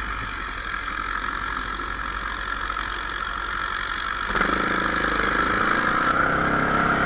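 ATV engine running steadily as the quad rides along; about four seconds in the throttle opens and the engine note gets fuller and a little louder.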